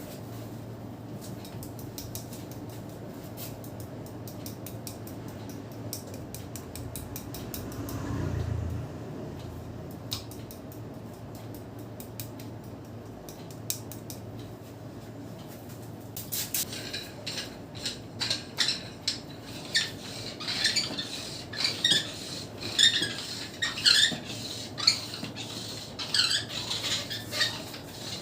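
Hair cracking during a head massage: hands pull and twist the hair, giving a run of fine crackling clicks. From about halfway this turns into louder, sharper squeaky snaps, roughly two a second, over a steady low hum.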